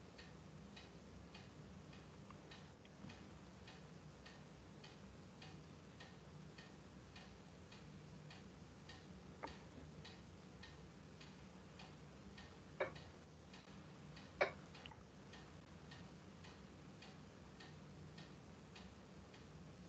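Near silence on an open call microphone: a faint, regular ticking about twice a second over a low steady hum, with three louder clicks about halfway through.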